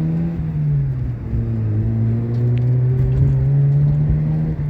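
Mazda RX-8's two-rotor rotary engine pulling under acceleration. Its note drops at an upshift about a second in, then climbs steadily as the car gathers speed in the next gear.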